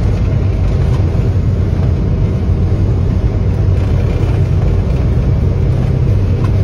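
Flight-deck noise of a jet airliner on its takeoff roll: engines at takeoff thrust and the aircraft rolling fast down the runway, heard from inside the cockpit as a loud, steady noise with a deep rumble.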